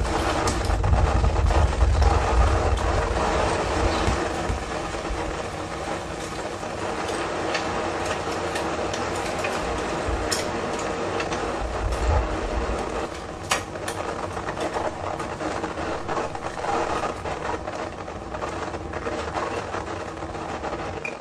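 Experimental noise music: a dense drone of noise over a heavy low rumble that is strongest in the first few seconds, with a couple of sharp clicks around the middle.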